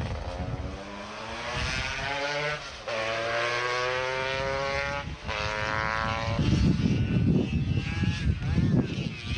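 A sidecar racing outfit's engine accelerating away uphill, its revs rising and dropping back at two gear changes about three and five seconds in. From about six and a half seconds a racing scooter's two-stroke engine is louder and rougher as it passes close by.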